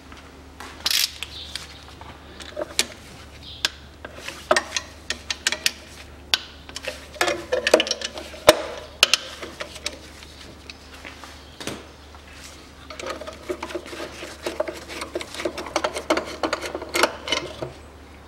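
Socket wrench clicking and metal clinking in short irregular runs while the bolts of an engine's timing belt tensioner are undone, with a denser spell of rapid clicking about two-thirds of the way through.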